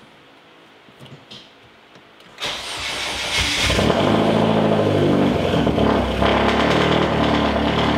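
A MINI Cooper R56's turbocharged 1.6-litre four-cylinder engine, heard from inside the cabin, starting for the first time after a new high-pressure fuel pump has been fitted and the fuel system primed. About two and a half seconds in, it cranks briefly, catches, and settles into a steady idle.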